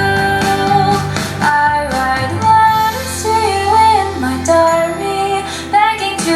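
Pop song with a female vocal melody over a soft backing, played through Samsung PS 460E three-way bookshelf speakers.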